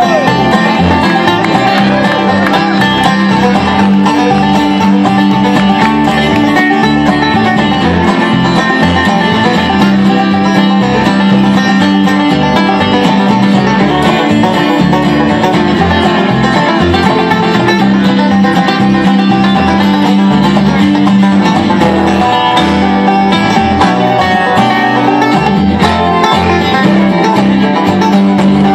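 Live bluegrass band playing, with the banjo prominent over upright bass, dobro, fiddle and acoustic guitar; loud and steady throughout.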